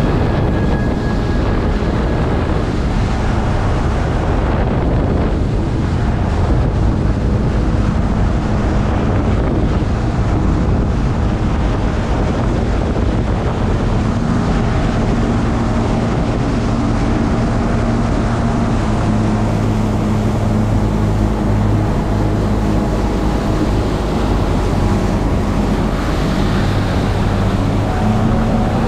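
Motorboat engine running steadily as the boat moves along under power, with wind buffeting the microphone and water rushing past the hull. The low engine hum grows a little stronger about halfway through.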